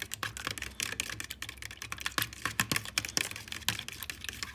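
Metal fork beating eggs in a bowl: rapid, irregular clicks and taps of the fork against the bowl, several a second.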